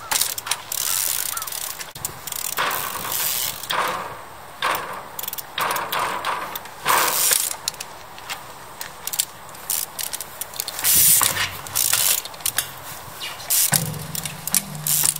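Trials bicycle hopping on concrete blocks: irregular sharp impacts and scuffs of tyres and bike landing on the concrete, with brake and drivetrain rattles in between.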